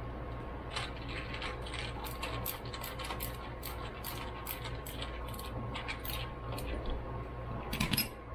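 Light, irregular metallic clicks and taps of hand tools and small carburetor parts being handled during reassembly, with a brief louder clatter near the end, over a steady low hum.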